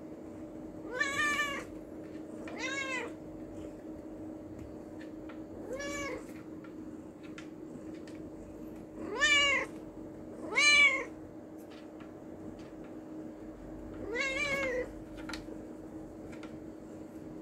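Tabby cat meowing six times, a few seconds apart, the two middle meows loudest, while its rump is patted. The owner takes this as the cat enjoying the pats and asking for more.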